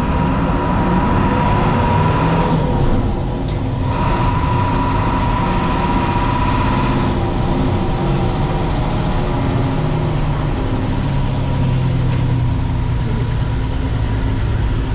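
City bus engine running, heard from inside the bus cabin with the windows open: a steady low rumble throughout, with a steady high whine over the first half that fades out about seven seconds in.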